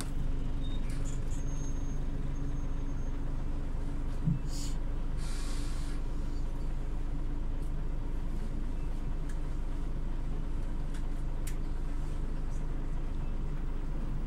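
Scania OmniLink CL94UB city bus engine running with a steady low hum, heard from inside the bus. About four seconds in there is a thump, followed by a hiss of air lasting about a second.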